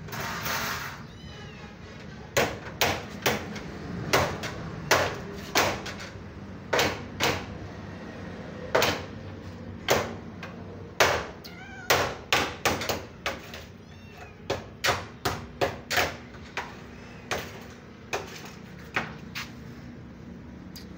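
Kittens mewing briefly near the start, then a long irregular run of sharp knocks, one to three a second, louder than the mews, stopping shortly before the end.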